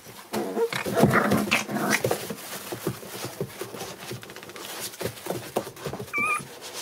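A litter of young American Bully puppies whimpering and squeaking, with many small scratches and scuffles as they clamber over one another. One clear high squeal comes near the end.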